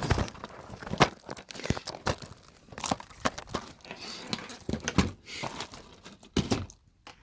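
Plastic DVD cases clicking and crinkling as they are flipped through by hand, in a quick irregular run of short sharp clicks and rustles that thins out near the end.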